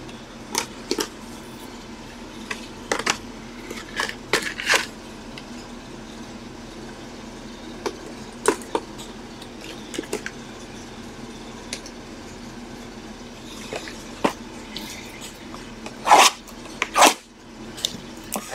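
Cardboard trading-card box, a 2017-18 Donruss Optic NBA Mega Box, being picked up and turned in the hands: scattered light taps, scrapes and rustles, with two louder knocks near the end.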